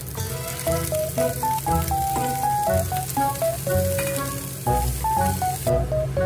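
Carrot and winter melon strips sizzling as they hit hot oil in a wok and are stir-fried with a spatula, the sizzle stopping abruptly near the end. A light plucked background melody plays throughout.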